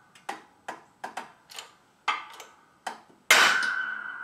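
Hydraulic shop press forcing a steel pin out of a knife tang through a punch: a run of sharp metallic clicks, about two a second, then a loud bang near the end with a ringing tone as the pin breaks free.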